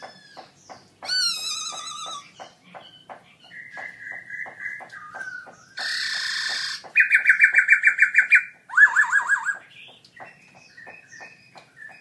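Black-throated laughingthrush (Garrulax chinensis) singing a loud, varied song of whistled phrases. It has wavering whistles, a harsh rasping note about six seconds in, and then fast repeated trills, the loudest part, until just before ten seconds.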